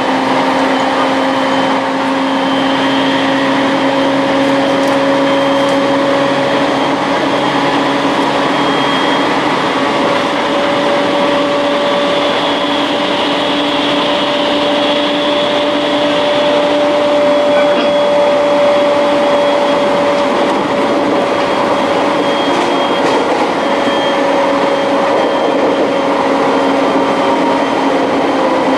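Electric train running at speed, heard from inside the passenger car: a steady rolling rumble with a steady whine that drifts slightly in pitch.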